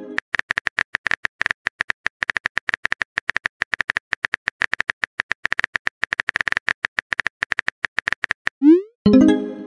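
Texting-app keyboard sound effect: rapid, evenly repeating clicks as a message is typed. Near the end comes a short rising pop and a brief tone, the app's message-sent sound.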